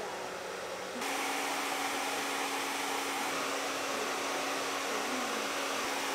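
Hand-held hair dryer with a diffuser attachment blowing steadily. About a second in it gets louder and its hum rises in pitch, then it runs evenly.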